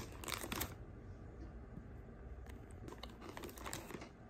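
Plastic snack wrappers crinkling and rustling as a hand rummages through them inside a tin. The crackling is densest in the first second, then fainter scattered rustles follow.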